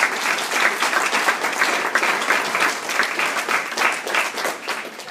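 A small audience applauding with dense, steady clapping, thinning out near the end.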